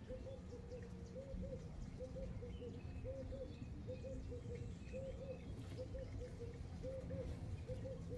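A dove cooing in the background: a steady run of short, soft rising-and-falling coos in groups of two or three. Faint rustling of damp tissue paper being pulled apart by hand.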